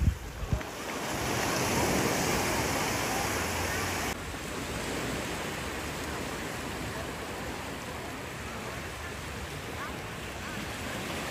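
Small surf washing up a sandy beach, a steady wash of noise that swells for a few seconds near the start, with wind on the microphone. Two sharp knocks in the first half-second.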